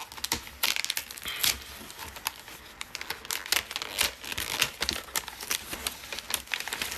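Gift wrapping paper crinkling and tearing as a present is unwrapped, a dense run of irregular sharp crackles.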